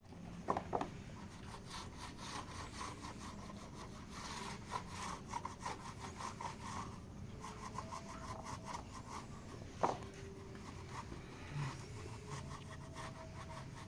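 Polishing of a plastic workpiece: quick repeated rubbing strokes, a few a second, with two sharp knocks under a second in and another about ten seconds in.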